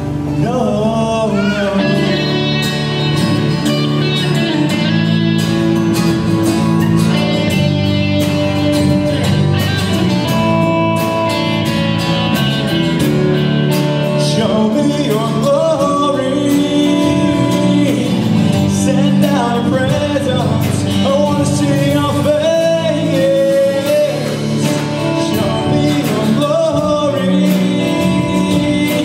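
Live gospel song: a man singing lead while strumming an acoustic guitar, backed by a drum kit with cymbal hits.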